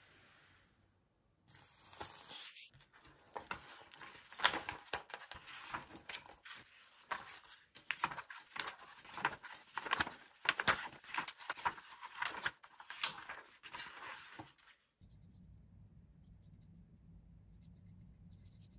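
Toy packaging being handled and opened by hand: irregular crinkling, tearing and clicking that starts about a second and a half in and stops abruptly near the end, leaving a faint low hum.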